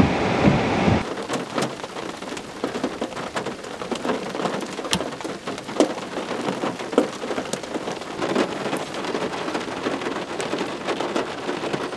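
Rain falling, with many separate drops striking close by. About a second in, a louder low rumbling noise cuts off abruptly.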